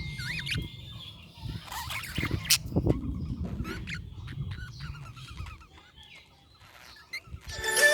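Budgies chirping in short rising and falling calls over a low background rumble. Music comes in near the end.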